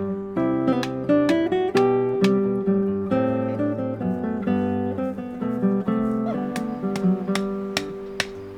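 Acoustic guitar music: chords strummed and notes picked, a new one about every half second, each left to ring.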